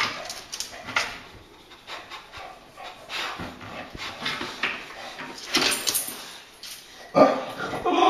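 English bulldog breathing hard in short, noisy breaths while begging for a toy, then breaking into a loud whine near the end.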